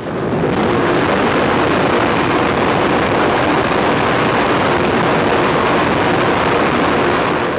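Heavy ship's anchor chain running out at speed as the anchor is let go, the big steel links clattering over the deck and down the chain pipe in one loud, continuous rattle.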